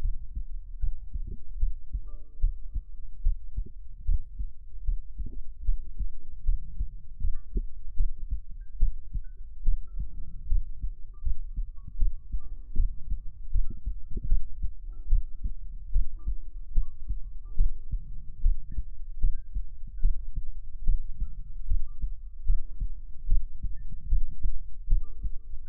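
Heartbeat sound: a steady run of low, soft thumps, with a faint tinkling melody above it.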